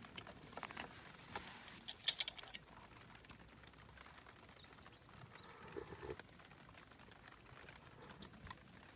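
Light clicks and taps of tableware being handled during a meal, loudest in a quick cluster about two seconds in, with a brief high bird chirp about five seconds in.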